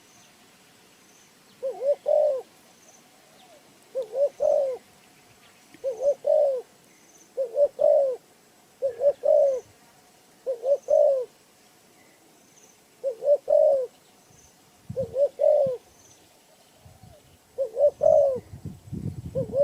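A dove cooing over and over: about ten short phrases of two or three low notes each, one every one to two seconds. A low rustling comes in near the end.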